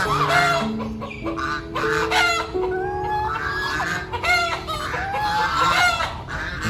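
A flock of chickens clucking and calling, many calls overlapping, some short and some drawn out, over soft piano music.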